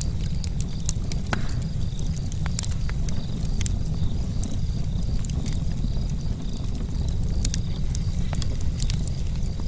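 Charcoal camp fire crackling, with scattered sharp pops and ticks over a steady low rumble.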